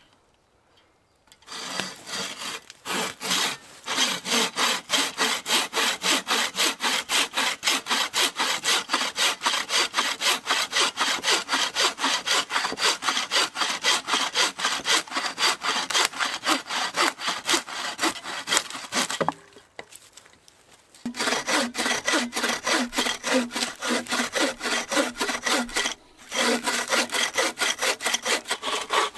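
A wooden-framed bucksaw cutting through a dead pine log by hand, with fast, even back-and-forth rasping strokes. The sawing starts a second or two in, stops for about two seconds some two-thirds of the way through, and breaks again briefly near the end.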